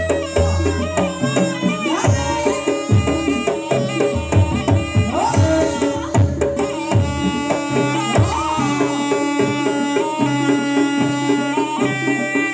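Live jaranan campursari music: kendang hand drums play a busy, driving rhythm under steady gamelan-style melodic tones, with a few gliding wailing notes on top.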